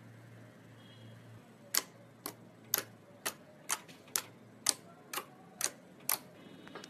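Slime being pressed and worked by hand, giving ten sharp, crisp clicks about two a second as air pockets pop.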